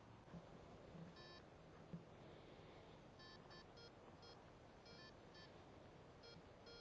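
Garrett ACE 250 metal detector giving a string of short, faint beeps as its search coil sweeps over buried targets.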